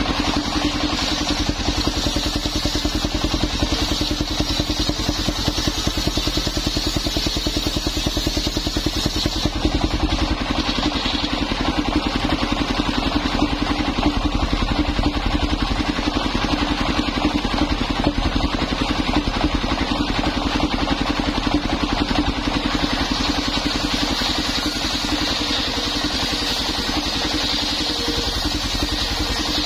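The engine of a belt-driven mobile circular sawmill running steadily under load, with the circular blade sawing old coconut wood into beams; the cutting noise grows brighter near the end as a piece is fed through the blade.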